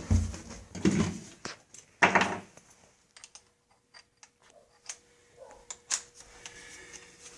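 Sheet-metal single-wall vent pipe being handled and fitted back into place: a couple of metal scrapes in the first seconds, then scattered light metallic clicks and taps.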